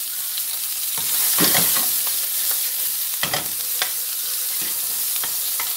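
Onion, chicken and freshly added spring onions sizzling steadily in hot oil in a non-stick pan, while a plastic spatula stirs them, scraping and knocking against the pan several times at irregular moments.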